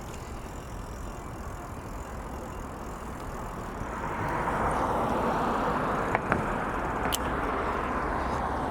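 Car driving along a city street, with steady tyre and engine road noise that swells about four seconds in. There are two light clicks near the end.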